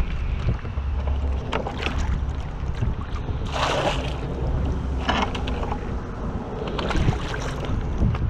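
A plastic bucket being dipped into water to fill it: a splashing gulp as water rushes in about three and a half seconds in, a smaller splash about a second later, and a few lighter sloshes, over a steady low rumble of wind on the microphone.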